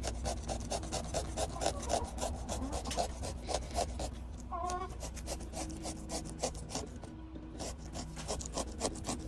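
A carving tool scraping and sawing through pumpkin flesh in quick, rasping strokes, several a second. A brief squeak comes about halfway through.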